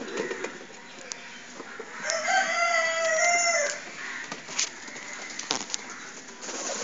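A rooster crowing once, a single long, held call of nearly two seconds about two seconds in. A few sharp knocks follow later.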